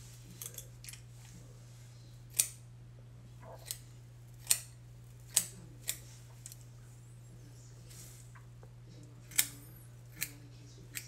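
Small scissors snipping through a thick beard: about ten sharp snips at irregular intervals, a second or so apart.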